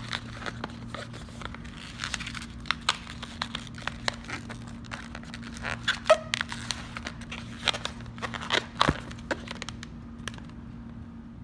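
Inflated latex modelling balloons being twisted and rubbed by hand: a dense run of sharp squeaks and creaks, with one short squeal about six seconds in, stopping shortly before the end. A steady low hum runs underneath.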